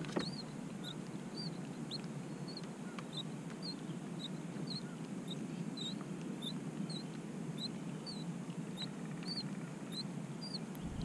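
Steady patter of light rain on the lake and kayak. Over it, a short high squeak or chirp repeats evenly, a little more than twice a second.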